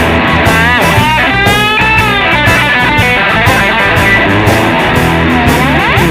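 Electric guitar through a BOSS DD-8 digital delay, played as a helicopter imitation: an evenly repeating chopping pulse of delay repeats, with the pitch sliding up and down over it.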